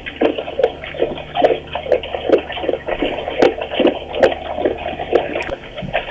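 Brown bear licking and chewing food out of a log close to the microphone, an irregular wet smacking and crunching about two or three times a second.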